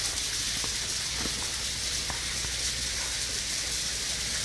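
Steady hiss with a low rumble underneath and a few faint ticks: the background noise of an amateur recording.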